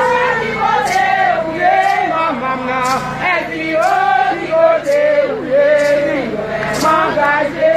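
A crowd singing a chant together, a Haitian Vodou (Bizango) ceremonial song, with several voices moving in melody. A short high hiss comes every second or two.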